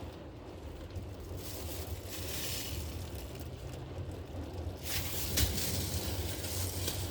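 A vehicle engine running with a low, steady hum, and a broad hiss that comes in about a second and a half in and swells again about five seconds in.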